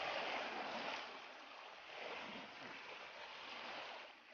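Small waves washing and lapping onto a sandy shore, a steady wash that is louder for about the first second and then eases off.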